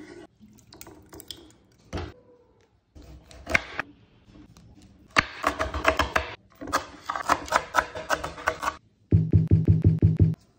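Kitchen knife chopping green chillies on a bamboo cutting board: two runs of rapid, sharp strokes in the middle, then a quick even run of heavier knocks near the end. A few single knocks come first, as a clay bowl is set down on the board.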